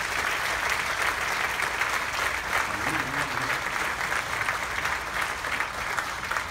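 A large audience applauding steadily: many people clapping together in a theatre hall.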